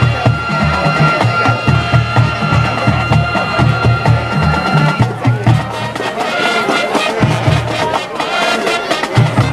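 Marching band playing, horns over a drumline with a regular beat on the bass drums. The low drums thin out about halfway through and come back in near the end.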